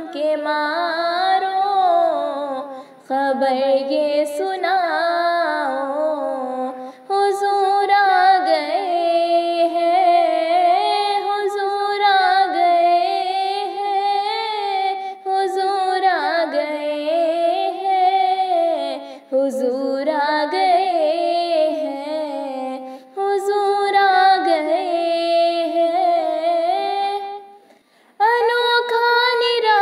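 A woman singing a naat in Urdu, a devotional song in praise of the Prophet, with drawn-out, ornamented phrases and short breaks between lines.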